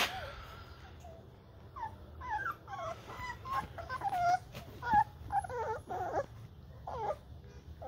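Three-and-a-half-week-old American Bully puppies whimpering and squeaking as they jostle to nurse. Many short, high whines that bend in pitch come thick and fast from about two seconds in until near the end.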